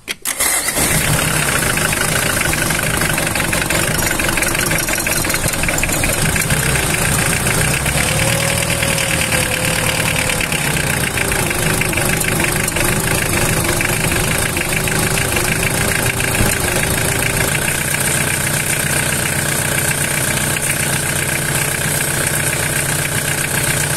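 Mitsubishi 4M40 four-cylinder diesel engine idling steadily while its cooling system is flushed with water.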